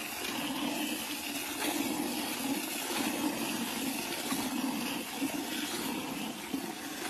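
Milk squirting from a cow's teats into a plastic bucket during hand milking, streams splashing into the milk already in the pail.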